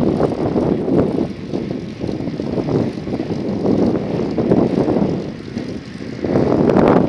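Wind buffeting a phone's microphone while riding a bicycle: a loud, uneven rumbling noise that swells and drops, strongest in a big gust near the end.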